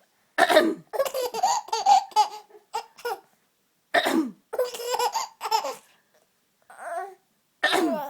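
A woman coughing and a baby laughing in fits between the coughs, the laughter set off by each cough; three rounds of cough and laughter.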